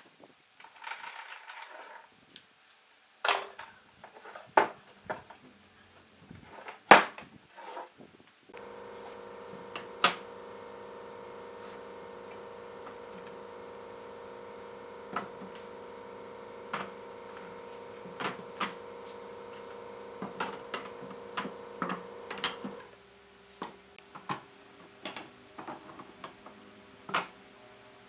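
Scattered sharp knocks and taps of wood being handled. About a third of the way in, a steady machine hum with several fixed tones starts under the knocks, and it falls to a quieter, lower hum a few seconds before the end.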